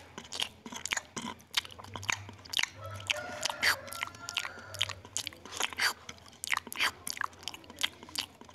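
Macaque monkey eating rice and stir-fried water spinach, with wet chewing and lip-smacking clicks coming irregularly a few times a second.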